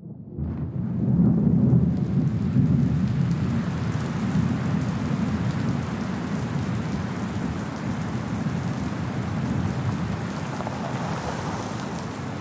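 Heavy rain with a low rumble of thunder. It comes in suddenly, swells over the first couple of seconds, then settles into a steady downpour.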